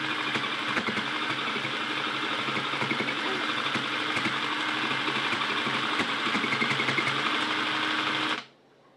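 Small electric sewing machine running steadily, its motor humming under rapid stitching clicks as a small piece is sewn in place. It stops shortly before the end.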